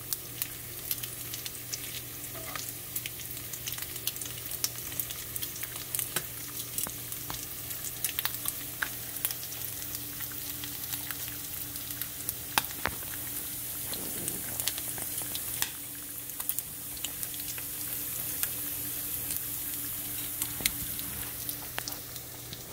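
Strips of smoked bacon, fried crisp, sizzling in a nonstick frying pan: a steady hiss of frying fat with frequent sharp pops and crackles.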